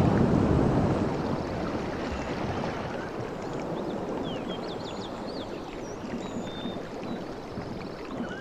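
Sea waves washing, loudest in the first second, then a steady wash. Small forest birds chirp from about halfway through.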